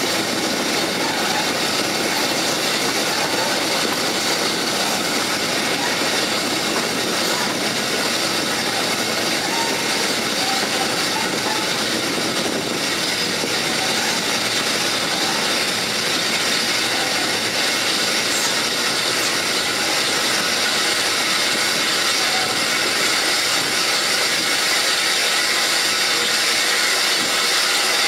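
Steam-hauled passenger train running along the line, heard from an open carriage window: a steady rush of wheels on rail and passing air with no break or change.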